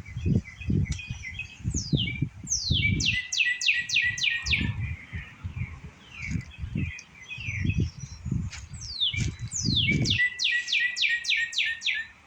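A songbird in the trees singing: two song phrases, about two and a half seconds and nine seconds in, each a rapid run of sharply falling whistled notes, with scattered chirps between. Irregular low rumbles and thumps run underneath.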